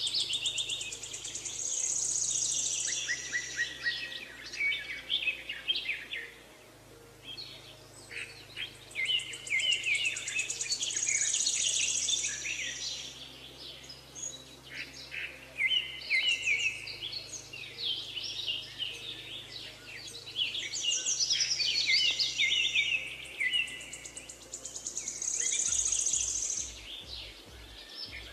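Birdsong: several birds chirping and trilling in quick high phrases, with a higher, buzzier trill coming back about every ten seconds.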